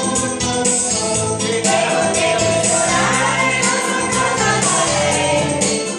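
A group of men and women singing together into microphones over a karaoke backing track with a steady beat.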